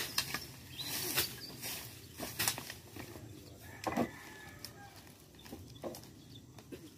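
Machete chopping into dry grass and brush, with crackling and rustling as the dry vegetation is pulled apart by hand: irregular sharp strikes roughly once a second, louder in the first half.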